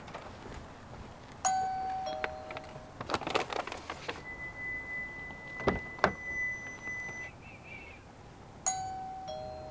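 Electronic doorbell chime, a two-note falling ding-dong, rung twice: once near the start and again near the end. In between, a plastic bag rustles, two sharp clicks sound, and a steady high tone holds for about three seconds.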